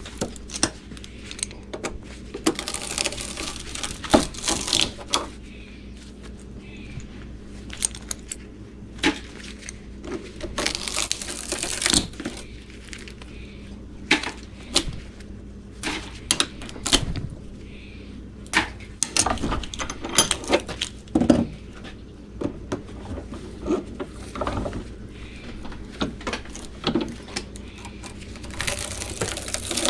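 Irregular metal clinks, taps and scraping of hand tools, a screwdriver and pliers, prying and pulling copper windings out of an electric motor stator clamped in a bench vise. The knocks come in uneven clusters.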